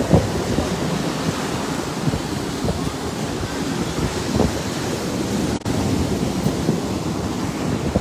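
Steady rushing outdoor noise of wind buffeting the phone's microphone, mixed with surf, with gusty low rumbles. The sound briefly drops out about five and a half seconds in.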